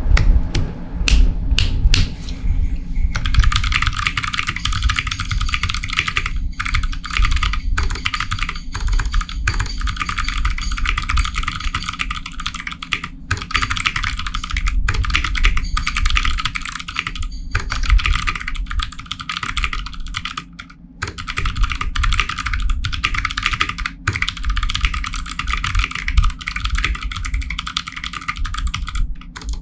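Fast continuous typing on a custom 60% mechanical keyboard fitted with clicky Kailh Box White switches on a brass plate and JTK keycaps: a dense stream of sharp key clicks, with a few brief pauses.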